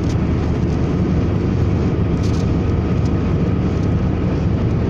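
Steady low drone inside the cabin of a Maruti Suzuki Alto K10 cruising at highway speed: its small three-cylinder petrol engine running under road and tyre noise.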